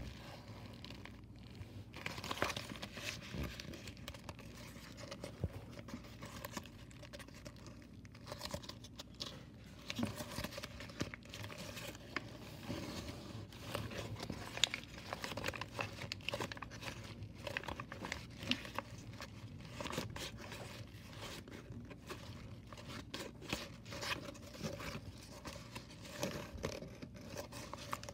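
White origami paper folded into a flasher tessellation crinkling and crackling as hands squeeze, twist and flex the folds, in an irregular run of small crackles.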